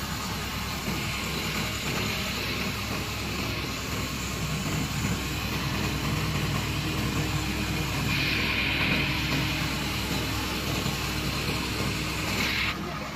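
Diesel engine of a HOWO garbage compactor truck running steadily at idle. A hiss comes in about two-thirds through and cuts off near the end.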